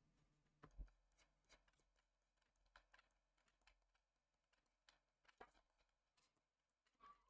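Near silence: faint room tone with scattered light clicks and taps from working at a computer desk.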